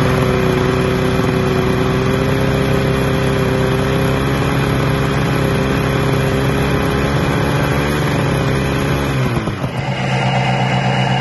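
2021 Polaris Assault 850's Patriot 850 two-stroke twin engine running steadily on only one cylinder: the PTO-side cylinder has no compression and the engine is blown. Its pitch dips near the end and it gives way to a different steady engine sound.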